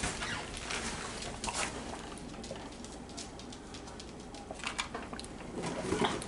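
Sipping a drink through a plastic straw from a plastic tumbler, with scattered small clicks and soft rustles.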